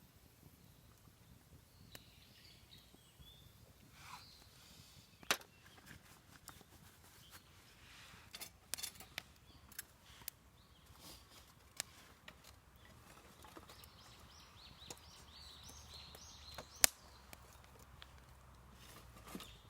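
Quiet forest ambience with faint bird calls, broken by scattered sharp clicks and taps, two of them louder, about five seconds in and near the end.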